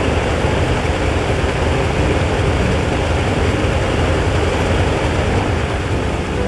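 Antonov An-2's nine-cylinder Shvetsov ASh-62IR radial engine running steadily and loudly.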